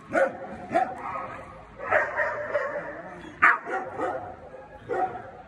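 Dog barking: about five short, sharp barks at uneven intervals.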